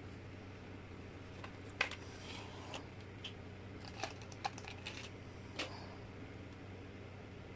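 Light clicks and taps of laptop parts and small tools being handled during disassembly and cleaning, with sharper clicks about two, four and five and a half seconds in, over a steady low hum.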